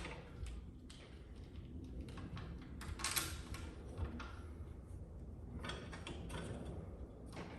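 Scattered light clicks and knocks of tools and metal parts being handled during reassembly, with one louder clatter about three seconds in.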